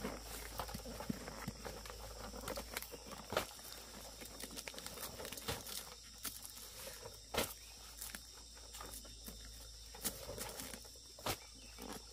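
Irregular light rustling and occasional sharp snaps, like someone walking through and handling vegetation, over a steady high insect hum.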